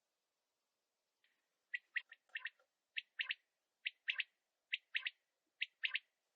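Male quail (batair) calling: a sharp note followed by a quick pair, repeated five times about once a second, starting over a second in.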